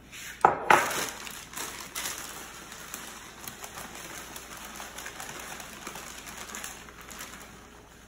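Dry oats pouring from a plastic bag into a measuring jug, a continuous grainy rustle with the bag crinkling. A couple of sharp crinkles or knocks come about half a second in as the bag is picked up.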